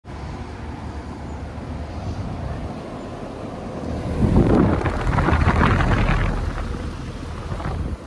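Carrier central air-conditioner condensing unit running: a steady low hum of fan and compressor, swelling into a loud rush of air from about four to seven seconds in as the top fan's discharge blows across the microphone.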